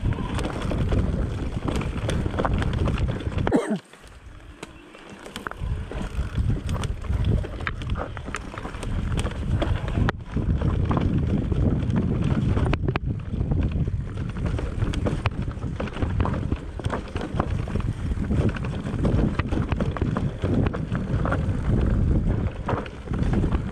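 Wind buffeting the microphone over a steady clatter of rattles and knocks from an enduro bike riding a rough trail. About four seconds in the sound drops away briefly, then builds back up.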